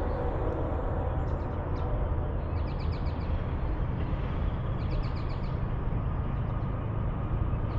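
Low steady rumble of an approaching freight train's diesel locomotives, still far off, with birds chirping in short quick trills about every two seconds.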